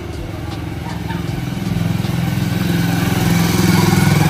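Motorcycle engine running under way as it is ridden, getting louder toward the end.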